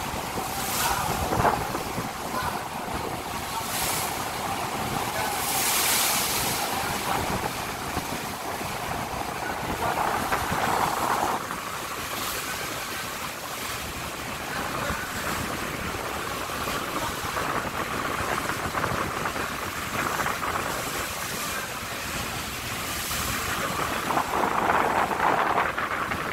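Sea water churning and splashing against the steel hull of a jack-up rig under tow, with wind on the microphone; the wash surges louder every few seconds.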